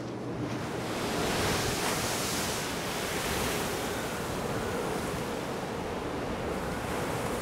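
Wind and heavy seas rushing around a fishing trawler's deck in rough weather: a steady noise of wind and breaking waves that swells about a second in.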